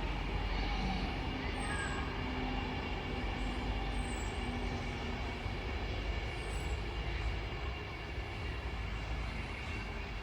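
Electromechanical warning siren sounding a steady held tone during its test, with wind rumbling on the microphone.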